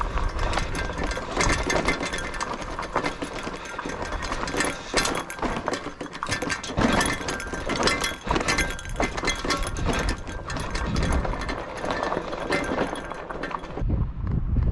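Yukon 750 e-bike riding over a rough trail: a dense, steady rattling and crunching of the tyres and frame over the ground. Near the end the rattling drops away, leaving a low rumble.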